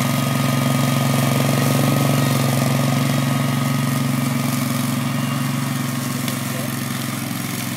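Spider ILDO2 remote-controlled slope mower's Kawasaki engine running steadily while cutting heavy weeds and brush, not lugging under the load. The hum eases slightly in loudness over the last few seconds.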